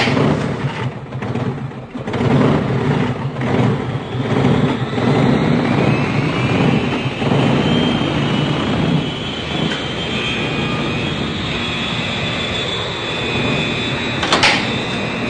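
A motor-driven machine running with a rumbling rattle; a whine rises in pitch over a few seconds, then holds steady. A single sharp click comes near the end.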